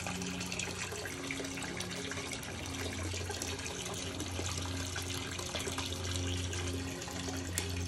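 Water running and splashing into an aquarium, over a steady low hum.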